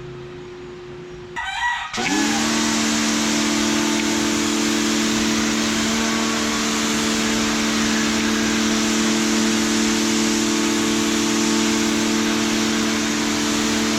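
Kawasaki ACK-302 electric pressure washer starting up about two seconds in and then running steadily. Its motor hum sits under the loud hiss of the high-pressure water jet.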